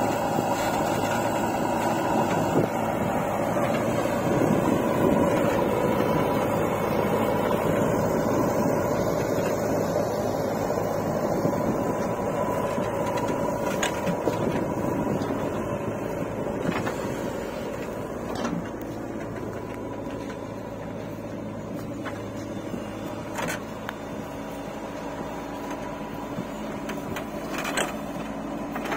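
JCB 3DX backhoe loader's diesel engine running steadily under hydraulic load as the backhoe digs soil and dumps it into a tractor trolley. A few sharp knocks are spread through the second half.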